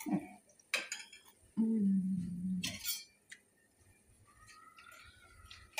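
A metal skimmer clinking against a stainless steel pot and a small serving bowl as fried lokma are lifted out. A short voiced sound, a hum or brief word, comes about two seconds in.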